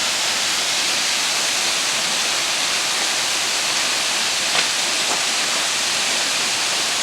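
Waterfall pouring steadily, a constant rushing hiss of falling water, with a small tick about four and a half seconds in.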